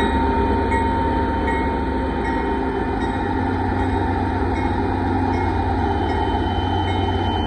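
Union Pacific diesel-electric locomotives of a rock train passing close by over a grade crossing, engines running with a steady heavy rumble. A crossing signal bell rings over it at an even beat, a little more than once a second.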